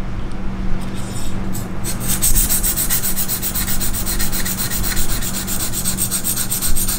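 600-grit diamond stone on a KME guided-rod knife sharpener scraping along a steel knife edge in quick short up-and-down strokes. It is soft at first, then from about two seconds in becomes a fast, even rasping.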